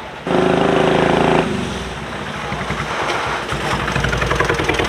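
Miniature Peterbilt 379 replica truck driving by: a loud horn blast of about a second, then its small engine running with a rapid pulsing exhaust.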